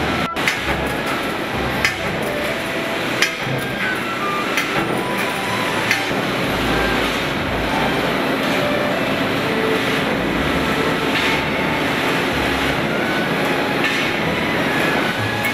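Metal-stamping plant machinery running: a steady, dense mechanical noise with scattered sharp metallic knocks and clanks.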